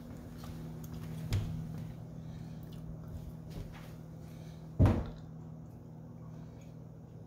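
A panelled interior door being handled: a knock about a second in and a louder thump near the middle, over a steady low hum.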